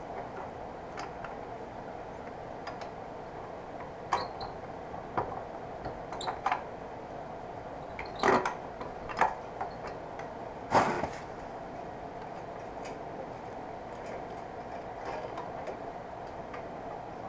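Light knocks and clicks as a 1980 Yamaha XS400's wrapped exhaust is fitted onto the motorcycle, a cluster of them between about 4 and 11 seconds in. A steady low hum lies underneath.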